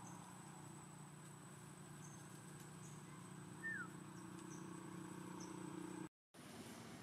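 Quiet forest ambience: a steady high-pitched insect drone over a faint low hum. About halfway through comes one short falling chirp.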